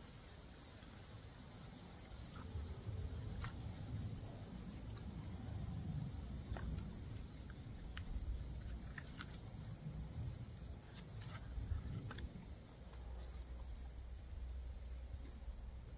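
Steady, high-pitched insect trilling from the summer grass, over a low rumble, with a few faint clicks scattered through.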